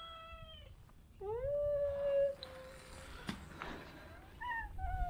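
Kitten meowing three times: a long steady meow that ends about half a second in, another that rises at the start and is held for nearly two seconds, and a shorter one near the end that falls in pitch.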